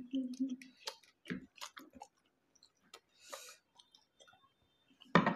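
Quiet eating noises: scattered soft clicks and mouth smacks of chewing steamed momos, with a short hum at the start and a brief hiss about three seconds in.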